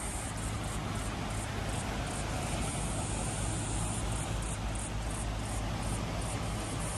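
Small waves washing over rocky shore, a steady rush, with insects chirping high and fast in pulses that come and go.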